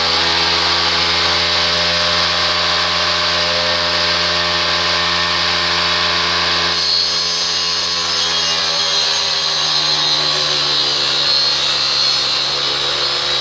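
Homemade table saw running steadily, then ripping a wooden strip from about seven seconds in: a wider, brighter hiss joins the motor's hum and the motor's pitch dips a little as the blade takes the load.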